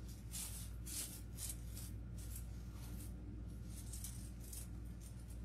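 Artificial floral picks and greenery stems rustling and clicking as they are handled and sorted on a craft table: short, irregular rustles, over a low steady hum.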